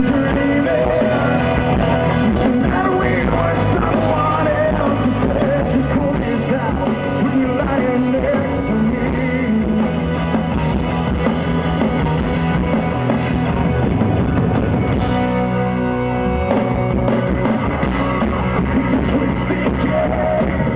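A rock band playing live, loud and steady, with a brief drop in the low end about fifteen seconds in.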